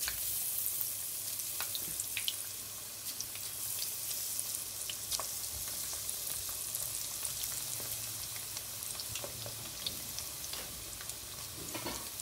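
Battered chicken pieces deep-frying in hot oil in a kadhai: a steady sizzle with scattered crackles and pops as more pieces are dropped in.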